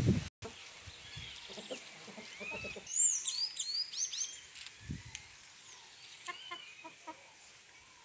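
Small songbirds chirping and singing, with a loud run of rapid high notes about three seconds in, and a chicken clucking a few times near the end. A brief low rumble at the very start cuts off abruptly.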